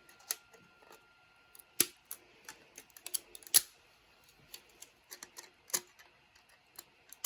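Irregular sharp clicks and snaps of PLA plastic as skirt and support material are broken off a 3D print, with the loudest snaps near two, three and a half and six seconds in.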